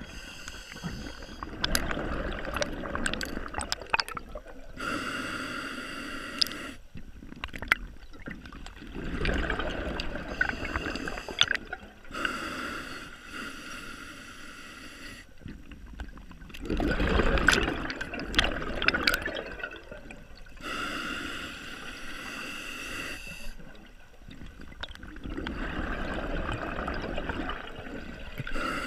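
Scuba diver breathing through a regulator underwater: a slow cycle of a hissing inhale through the regulator followed by a crackling rush of exhaled bubbles, about four breaths.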